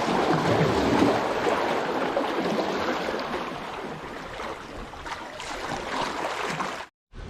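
Steady rushing noise, like surf or wind, that eases off about halfway through and cuts off suddenly near the end.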